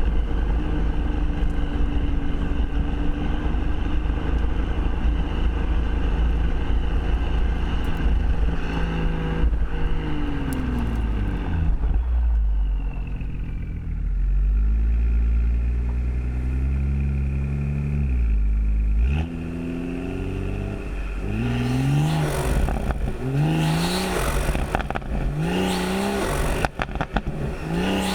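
Modified BMW M140i's B58 3.0-litre turbocharged inline-six with resonator delete and sports cat. It runs at a steady cruise, its pitch falls about ten seconds in, and near the end it revs in a quick series of short rising pulls with crackling exhaust pops.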